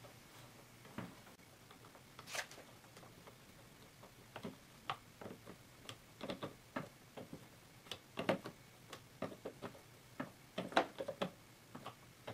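Irregular clicks and light knocks of a steel wrench and a plastic hose connector being worked onto a brass pump fitting as the connection is threaded and tightened. A few clicks at first, then many close together from about four seconds in.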